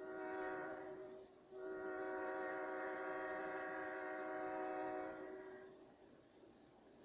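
Locomotive air horn blowing two blasts at a steady pitch. The first breaks off about a second in; after a short gap a long blast of about four seconds follows and fades out near the end.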